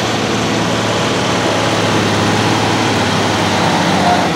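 Cab-over semi tractor's diesel engine running under heavy load as it pulls a weight-transfer sled on a dirt track, a loud, steady drone.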